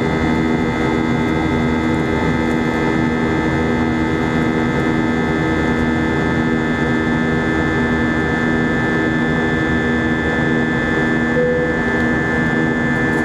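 Cabin noise of an Airbus A320 in flight, heard from inside the cabin: a steady rush of air and jet engine noise with several steady humming tones.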